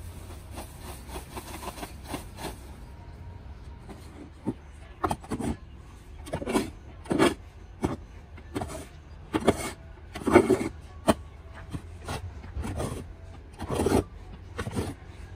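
Shovel scraping and rasping through dry cement mix in a steel wheelbarrow pan: a dozen or so short, irregular strokes starting about four seconds in, the loudest near the middle.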